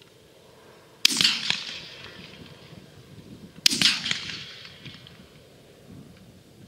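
Two shots from a Browning A5 semi-automatic 12-gauge shotgun, about two and a half seconds apart. Each is a sharp crack followed by an echo that fades over about a second.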